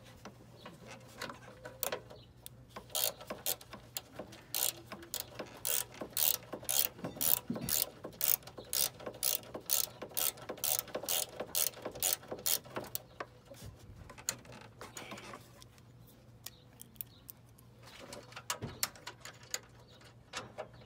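Socket ratchet with an 8 mm socket clicking in an even run of about three clicks a second as it turns a nut on the A/C accumulator's mount. The clicking stops about two-thirds of the way through, and a few more clicks follow near the end.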